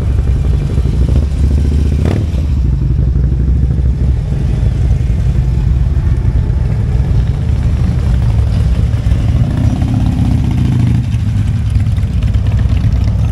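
Motorcycle engine running at low road speed, heard from the rider's seat: a steady deep engine note, with a brief rise and fall in engine pitch about ten seconds in.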